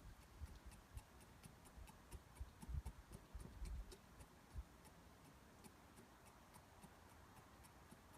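Faint low thumps, several in the first four seconds or so, as the primer bulb of an early-1980s Lawn-Boy mower with a 3.5 hp Tecumseh engine is pressed; the bulb does not work, and the engine does not run. Faint regular ticking runs underneath.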